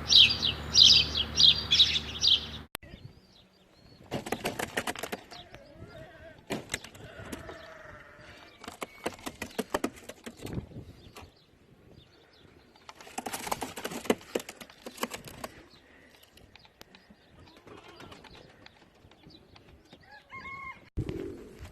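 Pigeons' wings flapping in several bursts of a second or two each, with faint low cooing between them. The first two and a half seconds hold loud bird chirping that cuts off abruptly.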